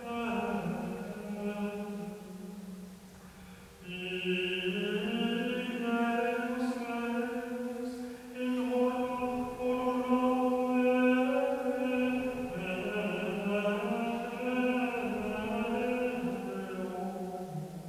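A man's voice singing Gregorian chant in Latin: a long, slow melismatic line of held notes, with a short breath pause about three seconds in, in a reverberant church.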